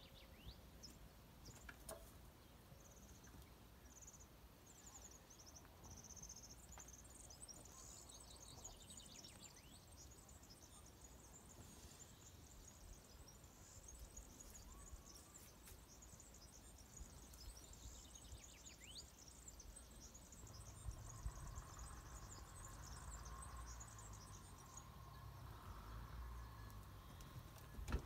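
Near silence: faint outdoor ambience with thin, high-pitched chirping that stops a few seconds before the end, and a faint low hum rising near the end.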